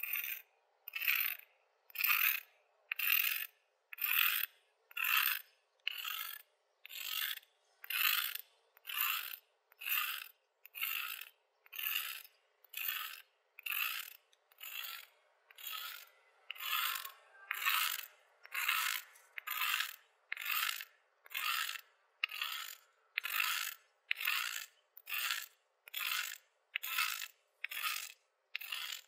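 A rasping, gravelly crunch repeated steadily about once a second, some thirty times: a gravel-grinding sound laid over slow gulps from a glass.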